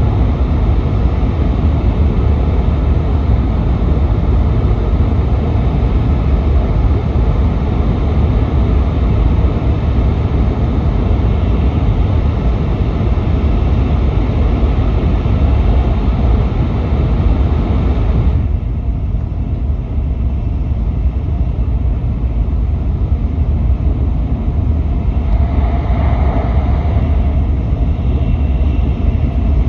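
Nishi-Kyushu Shinkansen N700S train running at speed, heard from inside the passenger cabin: a steady low rumble with a rushing hiss over it. About eighteen seconds in, the hiss suddenly drops away, leaving mostly the rumble.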